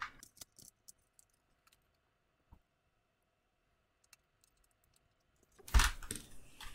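Small clicks and taps of a 3.5-inch hard drive being handled and screwed into a DVR's sheet-metal case, mostly quiet in the middle. Near the end, a loud knock with a short rattle as the metal recorder case is set back down.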